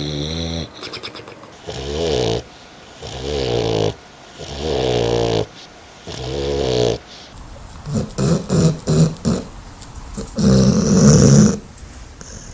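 Dog snoring: a run of pitched snores about a second long, coming roughly every second and a half, then after about eight seconds rougher, choppier snoring with quick short pulses and one louder snore.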